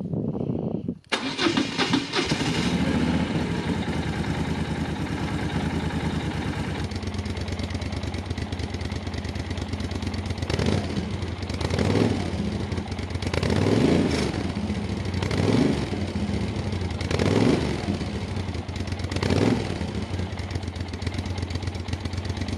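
1997 Moto Guzzi 1100 Sport i.e.'s air-cooled transverse V-twin running through a Mistral crossover pipe and factory Lafranconi silencers. It idles, and from about ten seconds in the throttle is blipped six times, about every two seconds, each rev rising and dropping back to idle.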